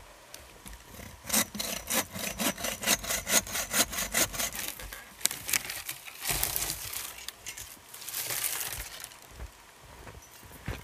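Hand saw cutting wood, with quick, even strokes about four a second for a few seconds, then a couple of longer, rasping stretches of cutting.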